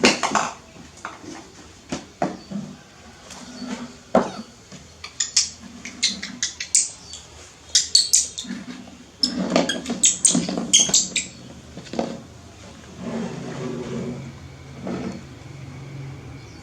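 Dishes and utensils clinking and clattering in quick runs of sharp clicks, thickest in the middle stretch, with quieter low sounds between them.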